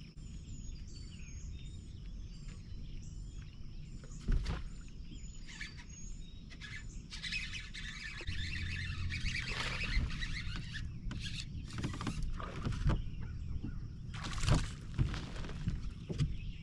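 A small bird repeating a short high chirp about twice a second for the first several seconds, with a loud knock about four seconds in, a few seconds of rushing noise near the middle, and scattered knocks later.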